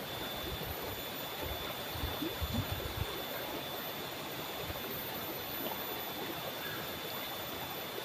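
Shallow stream water rushing steadily over rocks. A few low thumps come about two to three seconds in.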